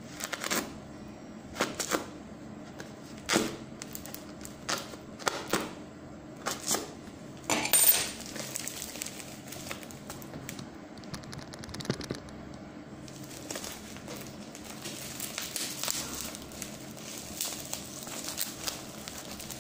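A small blade cutting and scraping through packing tape on a parcel: a run of sharp, irregular strokes, then a denser crackling of tape and wrapping being worked open in the second half.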